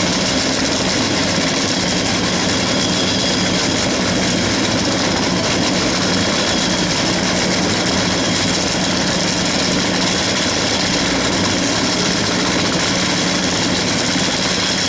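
Race car engine idling steadily, a loud even running sound with no revving or change in pitch.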